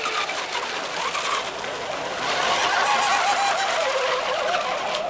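Model racing hydroplanes running flat out, a high motor whine that wavers up and down in pitch over a steady hiss of propeller spray; the whine drops lower about two seconds in.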